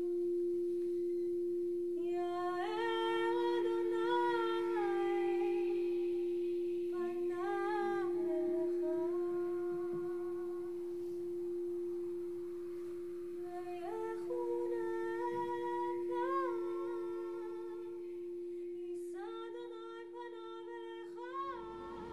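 Group vocal toning: a voice sings four long phrases that slide up and down over one steady, unbroken held drone note. The drone sounds like humming.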